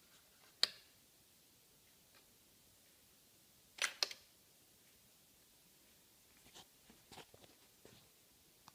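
Sharp clicks: a toggle switch flipped about half a second in, a louder double click near four seconds, then a few fainter clicks and taps near the end.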